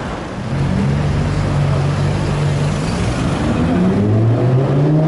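A car engine running loud with a deep, steady note that comes in about half a second in. Near the end the note climbs in pitch as the car accelerates, over a background of street traffic noise.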